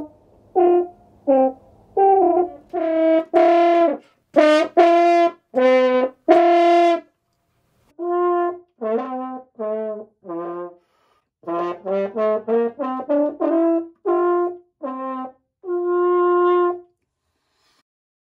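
French horn playing a run of short separate notes, a pause about halfway, then a second run that ends on one longer held note. The playing stops about a second before the end.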